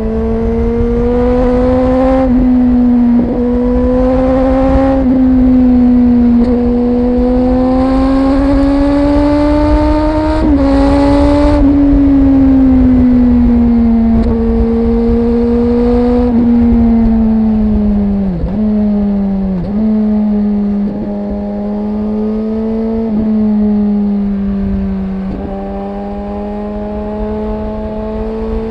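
Suzuki GSX-R 1000's inline-four engine running under way on the road, its pitch climbing slowly and easing back again. Two short, sharp drops in pitch come about two-thirds through. Short bursts of hiss come and go over the engine.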